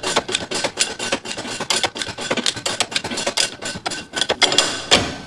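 A Corvair rear strut rod bushing being pressed out with a manual shop press. It makes a fast, rough run of scraping, creaking clicks as the rubber and steel shift under load.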